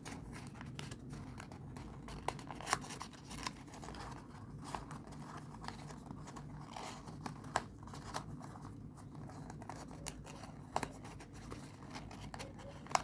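Folded paper origami units being handled and pressed together: irregular crisp clicks and rustles of paper as flaps are tucked into pockets, over a faint steady low hum.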